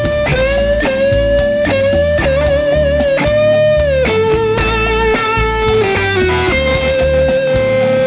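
Vox Bobcat V90 electric guitar through a high-gain Soldano X88R-style preamp and amp simulation, playing a lead line: long held notes with wide vibrato, a drop in pitch about four seconds in, a quick run of notes near six seconds, then a held note. A rock backing track with drums and bass plays underneath.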